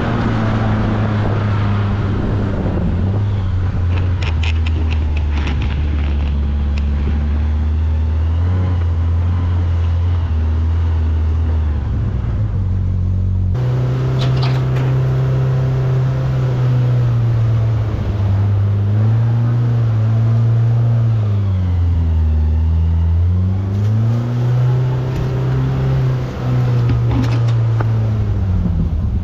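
Side-by-side UTV engine running while driving along a dirt trail. The engine pitch steps up about halfway through, then dips and climbs back several times as the revs fall and rise.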